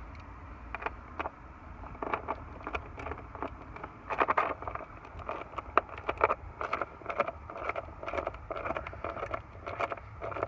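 Hands working wires loose at a circuit breaker on a wiring panel: irregular small clicks, rustles and scrapes of wire and plastic, over a low steady hum.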